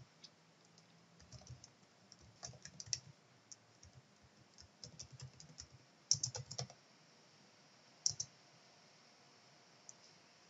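Computer keyboard typing in short irregular runs of keystrokes with pauses between them, the loudest run about six seconds in and a last few keys about eight seconds in.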